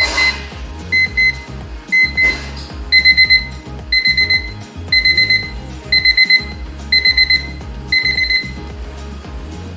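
Analog quartz alarm clock's electronic alarm beeping loudly. It gives single high beeps about once a second at first, then from about three seconds in a quick cluster of beeps each second, and stops near the end.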